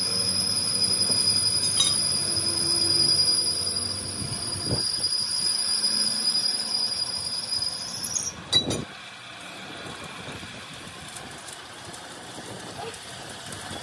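Gravity-feed paint spray gun spraying: compressed air hisses with a steady high whistle, then cuts off with a click about eight seconds in, leaving a quieter background.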